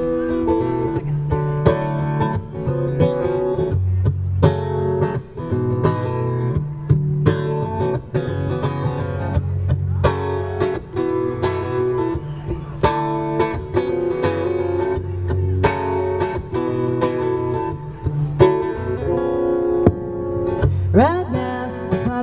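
Steel-string acoustic guitar strummed in steady chords, an instrumental passage of a live song. A singing voice comes in near the end.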